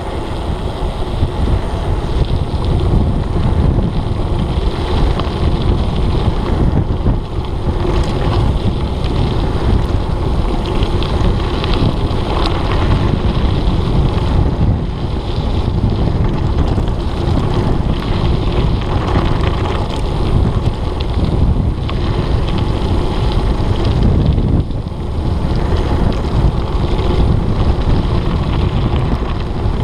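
Wind rushing over the microphone of a camera riding on a mountain bike at downhill speed, mixed with the tyres rumbling over a gravel dirt road. The noise is steady and loud, with a few small ticks of gravel or rattling bike parts.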